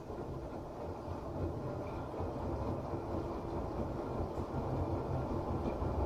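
LG Direct Drive front-load washing machine running its Drum Clean cycle: the drum turning with water churning inside, a steady low rumble.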